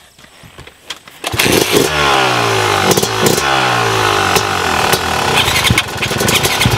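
A Yamaha 250 off-road dirt bike engine starts about a second in and is revved over and over, each blip falling back in pitch.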